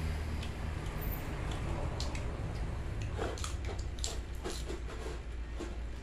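A person chewing food close to the microphone: irregular crisp crunches, starting about two seconds in and coming in quick clusters, over a steady low hum.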